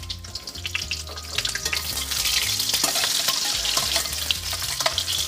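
Egg omelette frying in hot oil in a stainless steel wok, sizzling louder from about two seconds in as it is turned, with short clicks of a slotted metal spoon against the pan.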